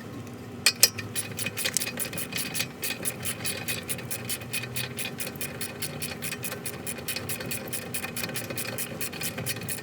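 3/8-inch-drive ratchet wrench clicking fast and evenly, about five or six clicks a second, as it backs out a brake caliper bracket bolt. Two louder metallic clicks come just under a second in.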